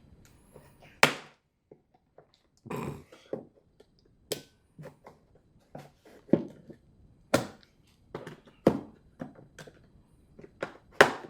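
A plastic jug being cut open with a knife: irregular knocks, clicks and crackles, with one longer scrape about three seconds in.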